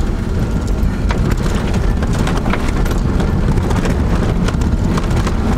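Camper van driving over a rough gravel track, heard from inside the cab: a steady low road and engine rumble with frequent clicks and rattles.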